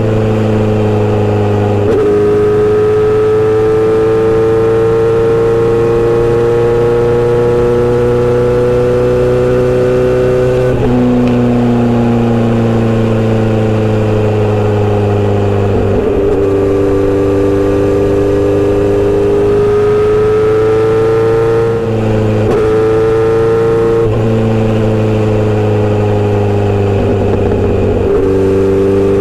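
Kawasaki Z900RS inline-four running through a short-pipe aftermarket exhaust while riding. The engine note climbs slowly in pitch and drops abruptly at several gear changes.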